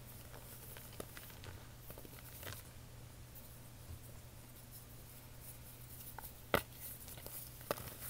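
Fingers pressing and patting fine white powder in a tray, giving soft scattered crackles and taps. The sharpest tap comes about six and a half seconds in.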